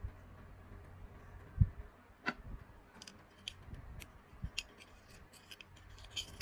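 A dull thump, then a sharp click and a run of small, crisp clicks and snips: handling noise from small hard objects.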